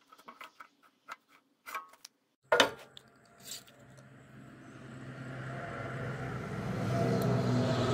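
Light clicks and knocks of wood blocks being handled on a band saw's metal table. About two and a half seconds in comes a louder knock, then a steady low motor hum that grows louder over the next few seconds and holds.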